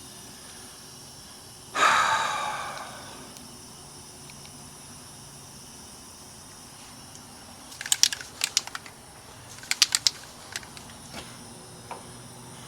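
A single loud metallic clang that rings and fades over about a second and a half, followed later by two quick clusters of sharp metal clinks and rattles, as from work on a truck's fifth wheel.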